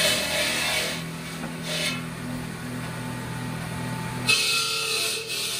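Background music with a regular pulse, mixed with the noise of a water-cooled circular stone saw cutting a stone block. The sound changes abruptly about four seconds in.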